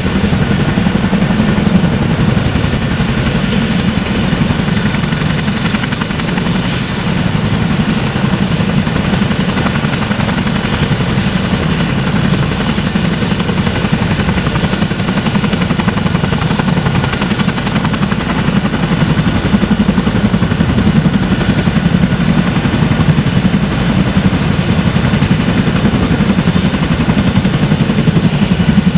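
Boeing CH-47 Chinook tandem-rotor helicopter running on the ground, rotors turning: a loud, steady rapid blade chop with a constant high turbine whine over it.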